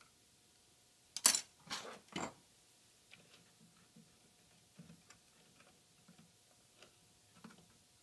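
Three short, loud scuffs about a second in, then faint, irregular small ticks and clicks as a soldering iron works at the tip terminal of an amplifier's fuse socket to desolder a wire.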